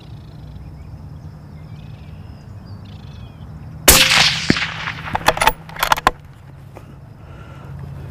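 A single rifle shot about four seconds in: a sudden loud crack that trails off over about half a second. A quick run of sharp cracks and clicks follows over the next second or so, with a steady low hum underneath throughout.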